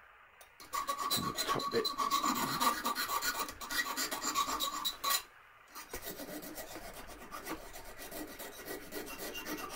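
Hand file rasping back and forth on stainless steel, taking off burrs and sharp edges. A loud run of quick strokes lasts about four seconds, then after a brief pause the strokes go on lighter and quieter.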